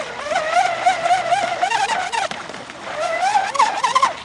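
Brushless electric motor of a radio-controlled catamaran speedboat whining at speed, its pitch wavering, with hull and spray noise. The whine drops out briefly about halfway, then comes back and rises in pitch near the end.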